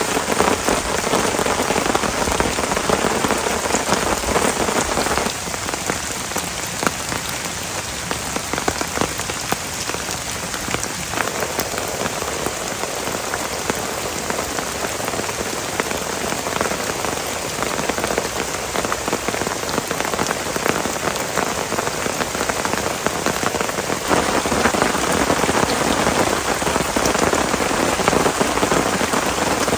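Heavy rain pouring steadily, a dense patter of drops. It eases slightly about five seconds in and grows heavier again later on.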